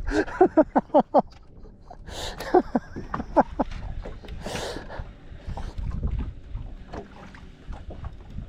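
Water splashing in short bursts as a hooked bass thrashes at the surface beside the boat, with quick clicks and knocks just before.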